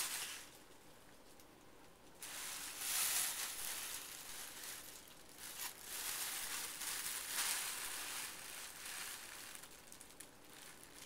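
Thin plastic shopping bags crinkling and rustling in uneven bursts as a cat wriggles and burrows in a pile of them, after a quieter spell of a second or two near the start.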